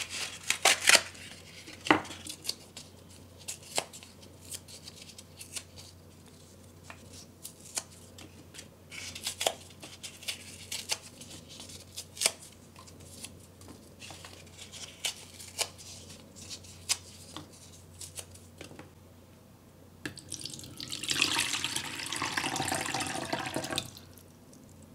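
Molded paper-pulp egg cartons being torn apart by hand: a long run of short rips and crackles. Near the end, water pours into a bowl for about three seconds.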